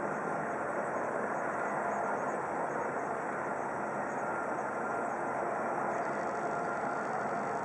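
Steady street noise: a constant rumble of vehicle engines and traffic that does not rise or fall.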